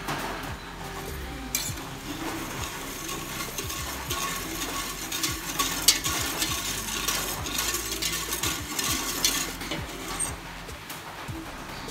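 Wire whisk stirring brown sugar into coffee in a stainless-steel pot, swishing through the liquid and clicking against the metal sides, with one sharp clink about six seconds in.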